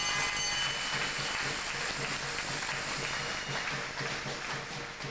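Hall crowd applauding and cheering a won table tennis point, with a rhythmic low beat of about four a second from drumming or clappers underneath, dying down near the end.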